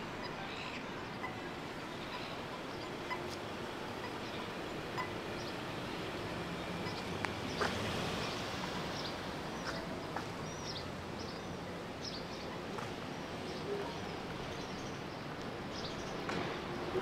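Outdoor city ambience: a steady wash of background street noise, with small birds chirping in short calls several times through the second half and a few faint clicks.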